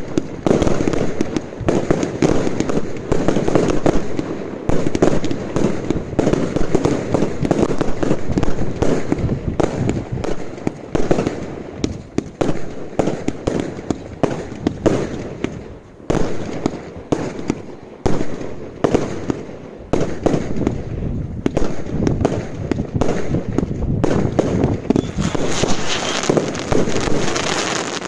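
Consumer fireworks firing in a dense, continuous volley of overlapping bangs and crackles, with a stretch of heavier crackling near the end before the firing stops.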